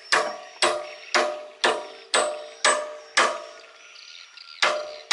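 Hammer blows ringing on the steel end of a clamshell dredger's hydraulic bucket cylinder, about two strikes a second with a pause of about a second near the end. The blows are knocking the cylinder open to reach the seals of a cylinder that is leaking oil.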